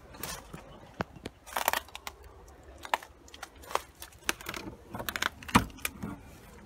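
Irregular clicks, taps and small metallic rattles of a door's metal letterbox flap being pushed and handled, with a short rattly cluster about two seconds in and another near the end.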